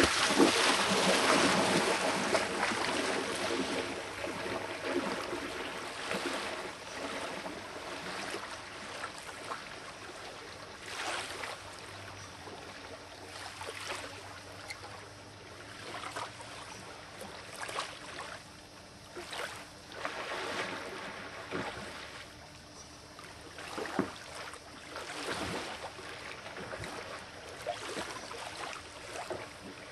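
Loud splashing as a man runs through shallow lake water, fading after about three seconds into fainter, irregular splashes and lapping water as he swims farther out.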